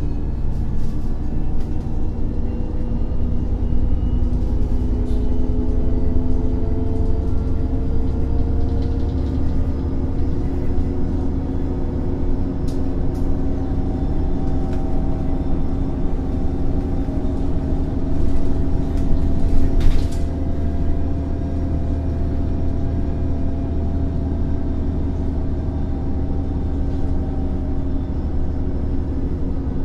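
Irisbus Cityclass CNG bus with an Iveco Cursor 8 natural-gas engine and Voith automatic gearbox, heard from inside the passenger saloon. The engine hum rises slowly in pitch over the first dozen or so seconds as the bus gathers speed, then holds steady over a low rumble. A few light clicks come midway, and a short knock or rattle about twenty seconds in is the loudest moment.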